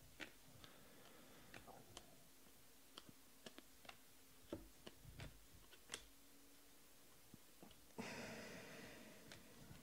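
Faint clicks and ticks of glossy Panini Prizm baseball cards being flipped through by hand, with a brief slide of cards across one another about eight seconds in.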